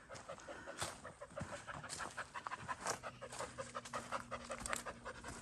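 A dog panting in quick short breaths.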